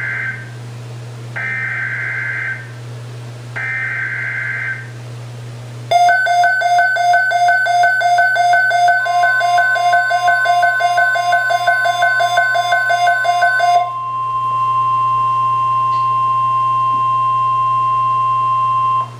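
NOAA Weather Radio Emergency Alert System signal: the tail of the first burst and then two more short screeching SAME header data bursts, marking the start of a severe thunderstorm watch alert. About six seconds in, a loud pulsing electronic alarm beep starts. The steady 1050 Hz weather radio alert tone joins about nine seconds in and goes on alone after the beeping stops, until it cuts off near the end.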